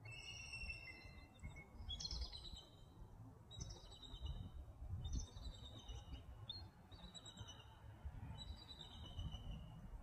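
Eagles calling: repeated bouts of high, thin chittering notes, several birds calling back and forth, over a low rumble.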